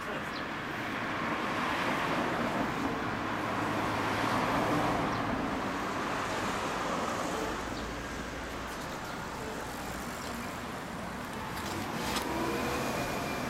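Motor vehicle noise: a sound like passing traffic swells over the first few seconds and eases off, over a steady low hum.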